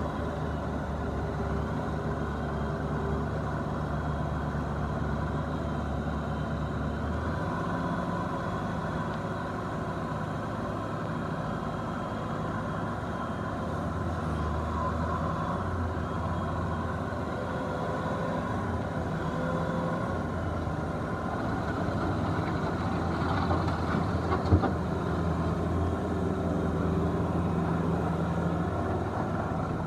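Bobcat S650 skid steer's diesel engine running steadily; its engine speed changes about seven seconds in. One sharp knock about three-quarters of the way through.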